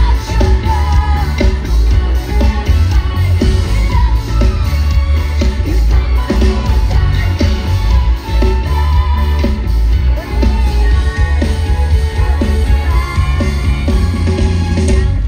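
Live amplified pop-rock concert music heard from the crowd: heavy, booming bass under a steady beat, with a lead melody over it.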